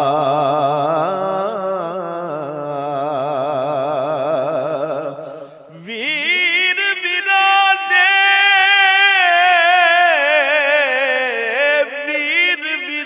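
A man's voice sustains long, wavering, wordless notes, melismatic singing of a Punjabi Sufi kalam. One held note fades out about five seconds in. A higher note then rises in, holds and slides down near the end.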